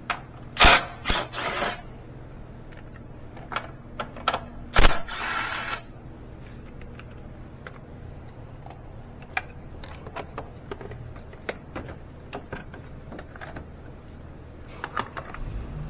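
Metal hand tools clinking and clattering during work on a car's starter motor: two sharp metallic clacks, about half a second in and near five seconds, each followed by a short rattling stretch, then scattered light clicks.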